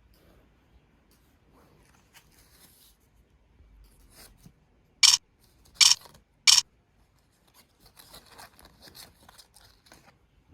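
Packaging being cut or torn open: three sharp snips or rips, the last two closer together, then softer crinkling of the wrapping.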